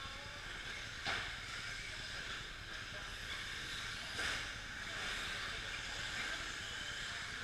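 1/10-scale electric 2WD short course RC trucks racing on an indoor clay track: a steady hiss and whir of motors and tyres on dirt. Two brief louder rushes stand out, about a second in and about four seconds in.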